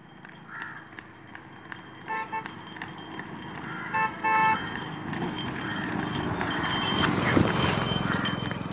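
A car horn toots three short times about two seconds in and twice more about four seconds in. Then the hoofbeats of a pony on a tarmac road, with the car behind it, grow louder as they come up close.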